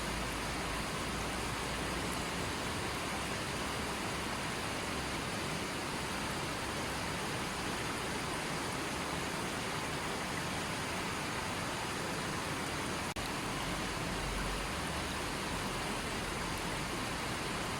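Stream water rushing steadily in an even hiss, with a momentary drop-out about thirteen seconds in.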